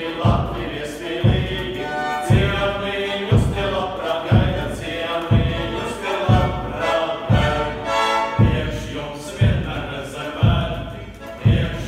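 Male vocal ensemble singing a Latvian folk song together, over a drum struck steadily about once a second, with a small accordion playing along.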